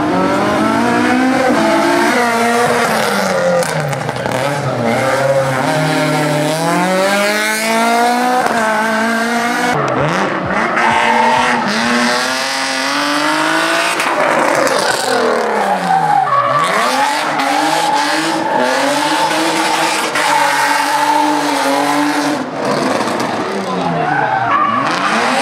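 Competition car engine revving hard through a slalom, its pitch climbing and then falling steeply several times as the car accelerates and brakes, with tyres squealing.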